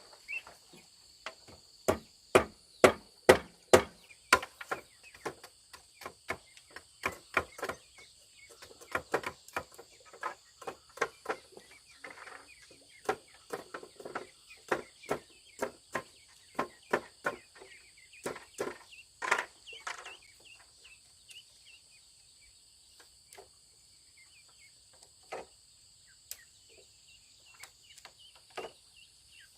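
Repeated hard strikes of a hand tool, such as hammering or chopping, about two a second and loudest early on, thinning to scattered blows after about twenty seconds. Insects buzz steadily throughout.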